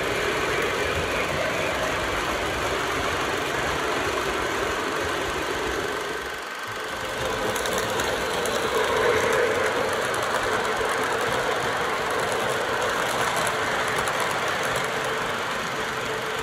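O gauge model trains running on the layout's track: a steady mechanical rumble and clatter of wheels and motors, dipping briefly about six seconds in and swelling a little around nine seconds.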